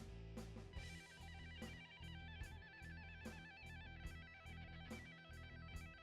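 Background music with a steady drum beat, a bass line and a repeating plucked-string melody.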